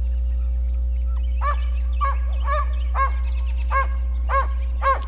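An animal giving a series of about seven short, high-pitched calls, roughly two a second, starting about a second and a half in, over a steady low rumble.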